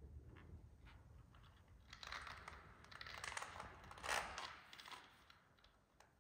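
Faint scuffs and soft taps of sneakers with air-cushion soles shifting on a stone floor, loudest a little past the middle.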